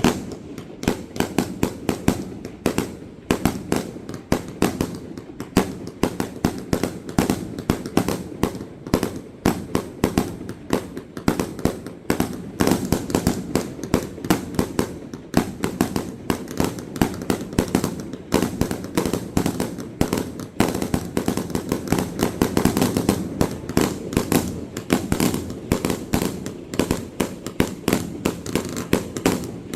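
Aerial fireworks going off in a dense, continuous barrage: many sharp bangs and booms a second, overlapping with one another.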